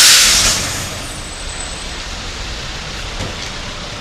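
A sudden loud burst of noise as the title graphic appears, fading within about a second, then a steady hiss.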